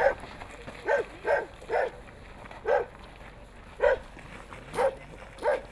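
A dog barking, about eight short barks in an uneven rhythm.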